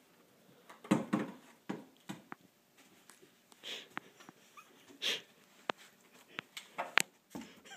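An empty plastic milk jug being dragged and bumped up carpeted stairs by a ferret: irregular scuffs and hollow knocks, the sharpest knocks coming in the second half.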